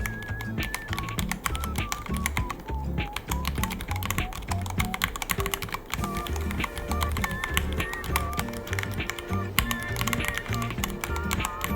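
Fast, continuous typing on a Ducky One 3 mechanical keyboard, a steady stream of key clicks, over background music with a melody and a bass line.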